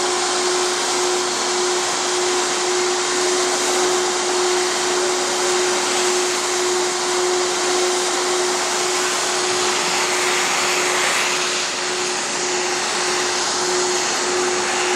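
CNC router running: a steady single-pitch whine, likely from its spindle, over a loud, even rushing noise of the machine's vacuum suction.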